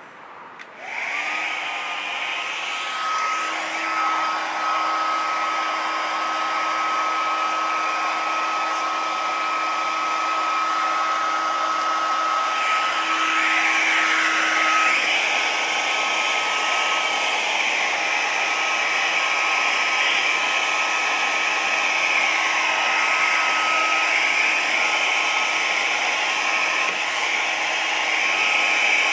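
Electric heat gun switched on about a second in and running steadily, its fan blowing with a held whine, heating black vinyl wrap so it stretches and moulds to the grille.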